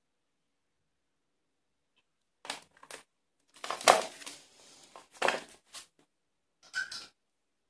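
Handling noise: a series of short rustles and knocks as bagged accessory blades and a battery charger are moved and set down, starting about two and a half seconds in, the loudest about four seconds in.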